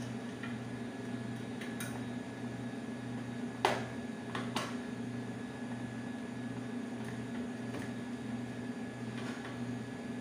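A few sharp clicks from a hand tool working the underside of an upturned metal chair's seat. The loudest comes about three and a half seconds in, with another about a second later and fainter ones around it. Under them runs a steady low hum with a slow pulse.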